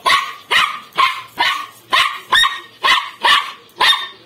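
Small white spitz-type dog barking in a steady run of short barks, about two a second.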